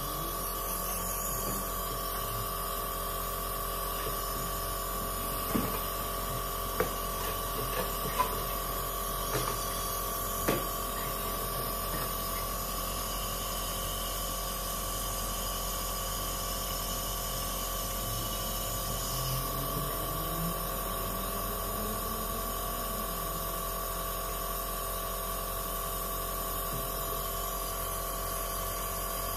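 A&D CN-233 compressor nebulizer running with a steady electric hum as it pushes air through the nebulizer cup and mask. A few light knocks come between about five and eleven seconds in.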